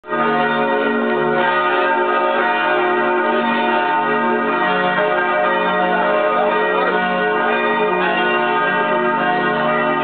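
Church bells ringing together, many overlapping tones sounding without a break.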